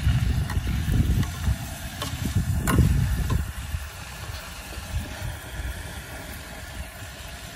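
Meat frying in oil in an aluminium pot on a propane jet burner: a low burner rumble with a faint sizzle. A metal spatula clicks against the pot a few times in the first three seconds, and the rumble eases about four seconds in.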